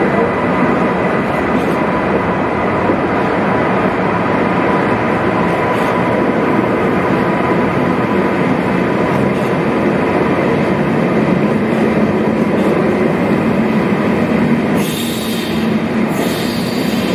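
ICE high-speed train rolling slowly along the platform, a steady running noise with a thin whine over it. A hiss joins in near the end.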